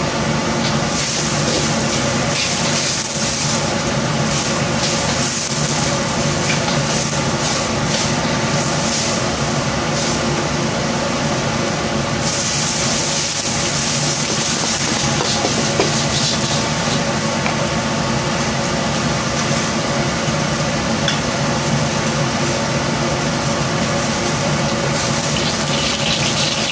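Commercial gas wok stove running with a steady, loud mechanical drone, while water bubbles in the wok and a ladle stirs and splashes it; a brighter hiss comes in around the middle.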